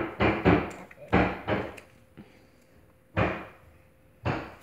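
Pokémon trading cards being handled and shuffled: a string of short, sharp slaps and flicks, several close together in the first second and a half, then two single ones further apart.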